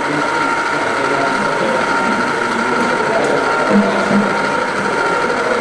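A small machine running steadily, with a constant whine over a mechanical whirr.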